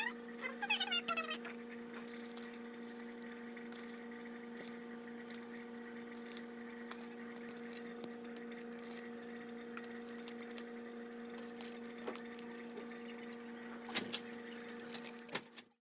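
Faint, steady electrical hum. About half a second in comes a short run of high, falling squeaks, and near the end a soft knock.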